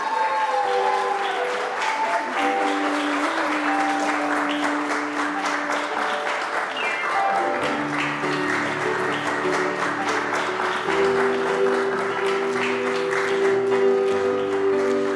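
Wedding guests applauding over music. About halfway through, the music shifts into a fuller song with a bass line underneath.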